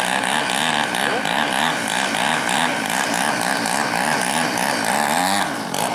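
Desert Aircraft DA-120 twin-cylinder two-stroke gas engine of a giant-scale model aerobatic plane running hard while the plane hovers nose-up. Its pitch rises and falls over and over as the throttle is worked to hold the hover, with a brief dip near the end.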